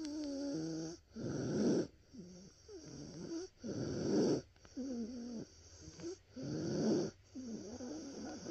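A young child with croup breathing noisily and with effort, about three breaths: a wavering, high-pitched wheezy sound alternates with a rough rasp. This is the stridor of croup, from the swollen larynx and windpipe.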